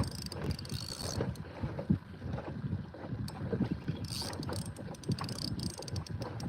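Fishing kayak and tackle noise as a big fish is played on a light rod: irregular knocks and clicks from the kayak and reel over water and wind rumble, with two short stretches of higher hiss.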